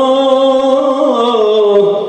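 Male vocalist holding one long sung note in live Turkish music, the pitch wavering and then falling away in the second second.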